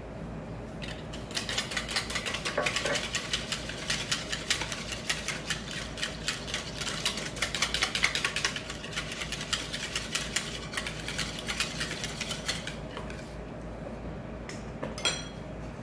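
Wire whisk beating against the sides of a plastic mixing bowl, whisking yeast into warm water: a fast, steady run of clicks lasting about eleven seconds. A brief clatter near the end.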